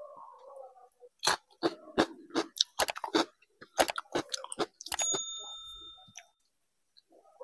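Fingers mixing rice and curry on a plate: a run of sharp, irregular clicks and squishes. About five seconds in a bright bell-like notification ding rings out and fades over about a second.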